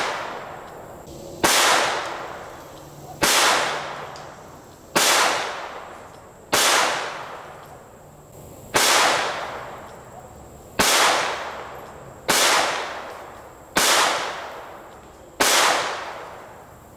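CZ-50 pocket pistol firing .32 ACP, nine single shots at a slow, steady pace of about one every one and a half to two seconds, each shot followed by a fading echo.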